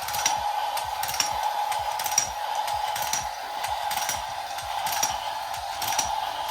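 Small electric motor of a toy domino-laying train whirring steadily, with a short click about once a second as it sets down each domino.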